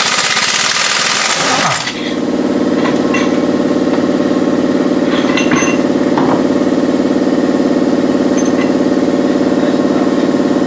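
Pneumatic impact wrench on a racing truck's wheel nuts: a loud hiss of air for about two seconds, then a steady, very rapid hammering rattle that runs on without a break, with a few light metallic clinks over it.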